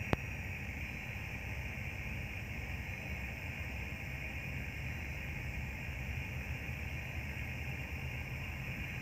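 Steady low rumble and hiss of a vessel's running machinery, with one sharp click just after the start.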